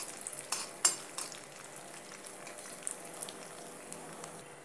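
Cashews and raisins sizzling in hot ghee in a pan. A steel spoon scrapes and clinks against the pan as they are stirred in the first second or so, then a steady, quieter sizzle follows.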